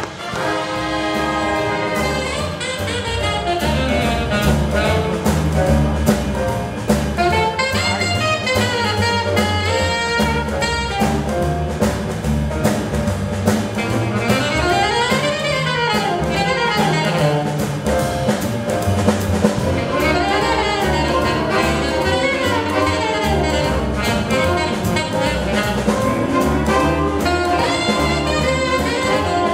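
Jazz big band playing, with a saxophone solo over the rhythm section and band. The solo line swoops up and down in pitch, most clearly about halfway through.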